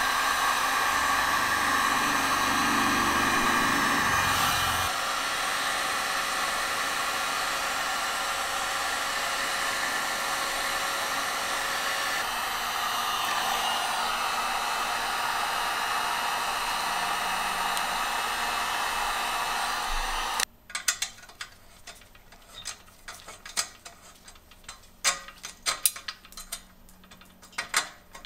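Heat gun blowing steadily, softening an old decal on the bike frame so it can be peeled; it cuts off suddenly about twenty seconds in. Then come light metallic clicks and clinks of small pivot hardware being handled and fitted.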